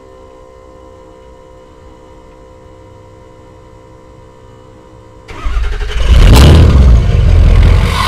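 Ford 6.0 Powerstroke V8 turbo diesel through a straight-piped 5-inch exhaust. After about five seconds of faint steady hum, it fires up suddenly and very loudly about five seconds in, runs hard for about two seconds, then drops back to a steady loud running.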